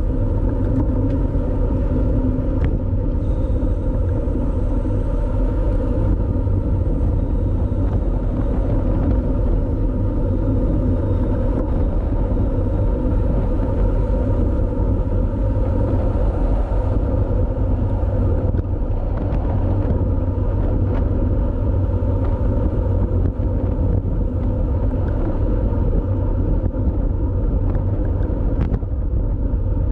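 Steady wind rumble and road noise from a bicycle riding at race speed, picked up by a camera microphone on the bike or rider.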